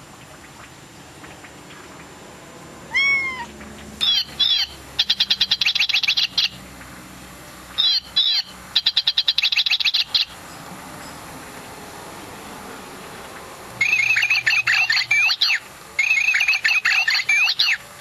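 Toy singing birdcage with an artificial bird, playing electronic birdsong: a falling whistle, then rapid, evenly spaced trills and chirps in three spells a few seconds apart.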